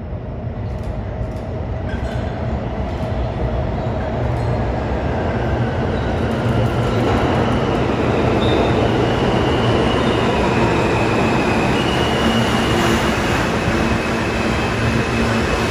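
R160 subway train pulling into an underground station and slowing along the platform. The rumble of its wheels on the rails grows steadily louder as it draws alongside, and several thin high squeals join in from the middle on.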